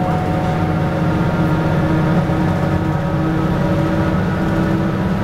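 Cabin sound of a Mercedes-Benz O405GN2 articulated bus driving at a steady speed: an even engine and road drone with a faint constant whine.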